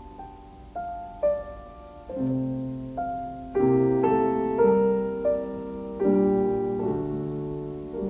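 Background piano music: a slow, gentle melody of single struck notes, joined by fuller chords from about two seconds in.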